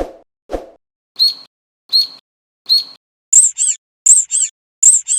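Rubber squeaky-toy squeaks in a quick series. Two lower squeezes come first. Three short high chirps follow, about one every 0.75 s. From about three seconds in come rapid pairs of very shrill squeaks.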